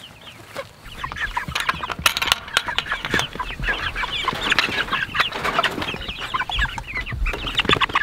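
A flock of young Red Ranger meat chickens calling in a chicken tractor, many short high clucks and peeps overlapping. A couple of sharp knocks come about two seconds in.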